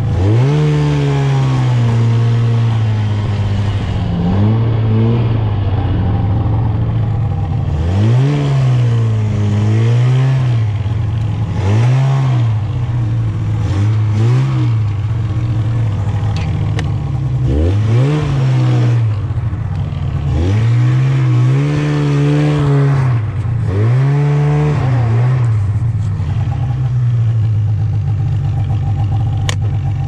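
1998 Polaris Indy 500 Classic snowmobile's two-stroke twin engine, repeatedly revved and let back down to a steady run, its pitch rising and falling about nine times.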